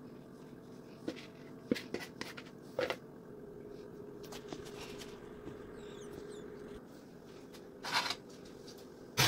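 A plastic spatula clicking and scraping against a glass baking dish a few times in the first three seconds, then a short clunk and rush about eight seconds in as the oven door is opened.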